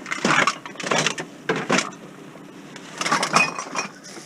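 Hard objects being handled and rummaged through, with irregular clattering and knocking in several short bursts.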